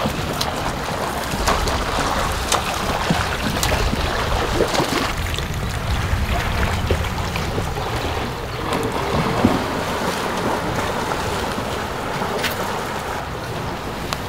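Wind rushing over the microphone outdoors, an uneven noise with low rumbling gusts and a few faint clicks.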